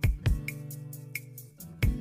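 Background music: a beat of deep kick-drum thumps and light high ticks over held chords.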